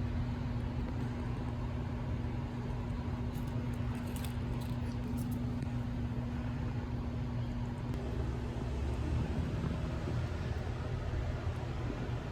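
Steady low mechanical hum with a constant droning tone.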